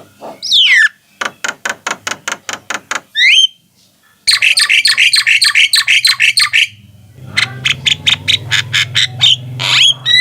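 Javan mynas calling: a falling whistle, then runs of quick clipped notes and a short rising whistle, a pause, then a dense rapid chatter followed by more sharp notes.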